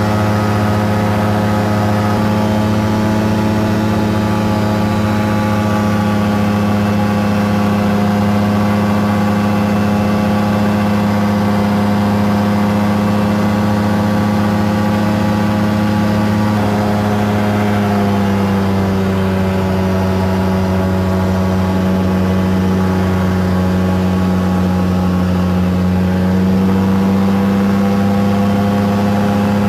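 Engine of a Caprice 21 ultralight aircraft running steadily in flight, heard from the cockpit. Its note drops slightly a little past halfway, then rises again near the end.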